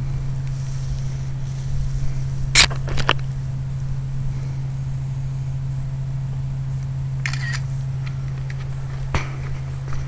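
Smartphone camera shutter clicks while photographing the capacitor wiring: two sharp clicks about half a second apart a few seconds in, a brief sound around seven seconds in, and another click near the end, over a steady low hum.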